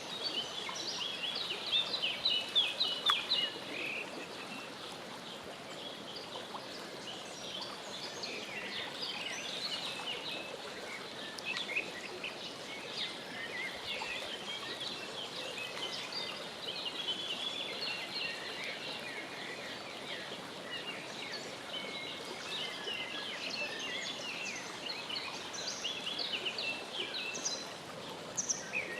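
Many high, short bird chirps in bursts of a few seconds, over a steady background hiss.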